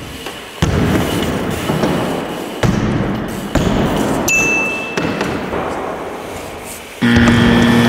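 A BMX bike lands with a thud about half a second in, then its tyres roll with a rough noise across the skatepark ramps, with further knocks a couple of seconds later. A brief high squeak follows, and a steady pitched hum lasts about a second near the end.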